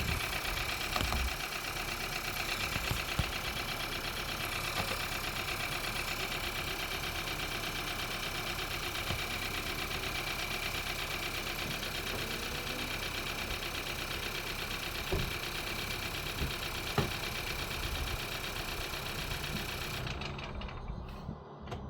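Volkswagen 1.5 TSI turbocharged four-cylinder petrol engine idling on a cold start, with a rapid, regular knocking over the running sound that the owner is asking about as a possible problem. Near the end the higher part of the sound cuts off suddenly.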